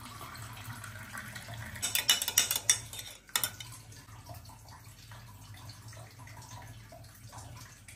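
Water poured into a tall drinking glass, then a metal spoon stirring the drink and clinking against the glass several times about two seconds in, with one more sharp clink a moment later.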